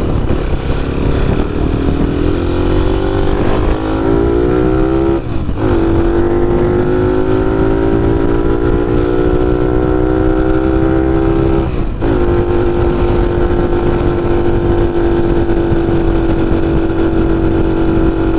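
Honda C90 motorcycle engine pulling away, its note rising through the gears with two brief dips at the gear changes, about five and twelve seconds in, then settling to a steady cruise. Wind rumble on the microphone underneath.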